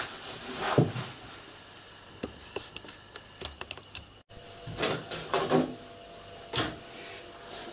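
Soft rustling of cloth and fibre stuffing as the stuffing is pressed by hand into a fabric toy body, with a quick run of light clicks and taps. The sound cuts out for an instant about four seconds in, then the rustling goes on in short bursts.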